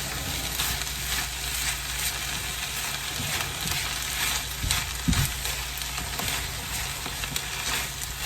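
Steak and cheese sauce sizzling steadily in a hot pan, with faint scattered pops and a brief knock about five seconds in.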